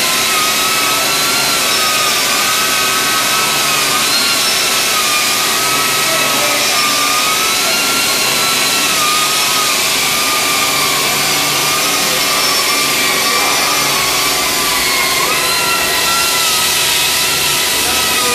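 Pneumatic polisher running continuously: a steady air hiss with a high whine that wavers slightly in pitch, as its speed shifts under load.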